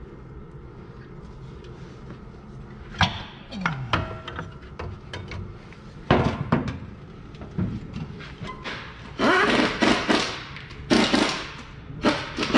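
Metal knocks and clanks of work at a Jeep Wrangler's rear wheel hub, one sharp knock about six seconds in. From about nine seconds in, short rattling bursts of a pneumatic impact wrench running nuts onto the wheel hub where a 30 mm hub spacer is being fitted.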